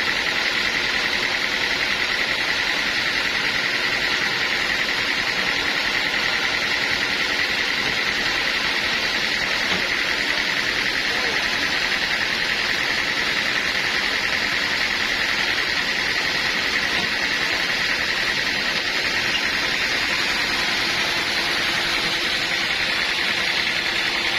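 Sawmill machinery running steadily without a break: a dense mechanical noise with a high, even hum in it.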